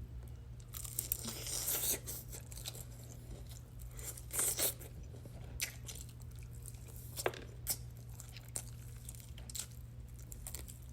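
Close-up eating of extra-crunchy fried chicken: irregular crunches and crackles of the breading as it is bitten, torn and chewed, over a steady low hum.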